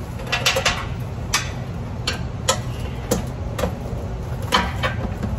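Sharp metallic clicks and clacks from hand tools working on an air compressor's electrical box. They come at an irregular pace, some in small clusters, roughly two a second, over a steady low background hum.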